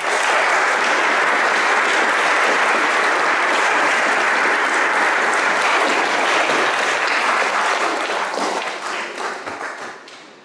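Audience applauding: dense, steady clapping that thins out and fades over the last couple of seconds.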